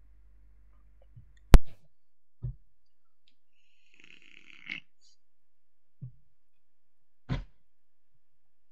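Clicks and knocks at a computer desk while a mouse is worked: one loud sharp click about one and a half seconds in, where a low hum drops out, then several softer thumps and a short hiss with a click in the middle.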